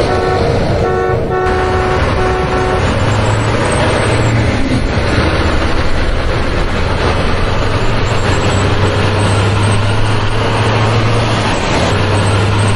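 Truck engine running steadily, with a quick series of short horn toots in the first three seconds.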